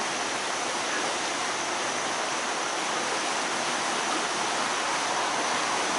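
Floodwater of the Great Egg Harbor River rushing steadily, a constant even roar of high, fast-running water.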